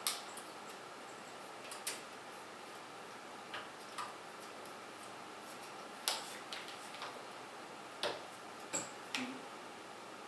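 Irregular sharp clicks and taps, about eight of them, from small metal and plastic hardware being handled while screws are fitted into PC components.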